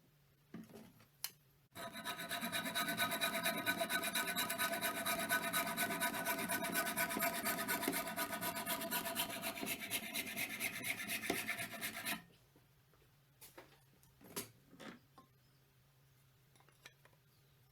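Rapid rasping strokes of a file or abrasive worked over metal, with a steady ringing tone running through them, starting about two seconds in and stopping abruptly some ten seconds later. A few faint knocks follow.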